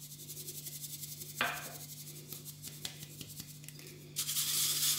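Powdered milk being sifted through a fine mesh kitchen sieve into a glass bowl: a fast, soft, scratchy rasp as the sieve is shaken, with one brief louder stroke about a second and a half in. Near the end it turns into a louder rubbing rasp as the powder is worked through the mesh.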